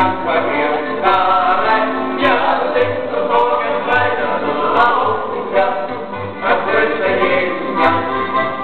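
Group of men singing a folk song in several-part harmony, with guitar accompaniment and low bass notes about once a second.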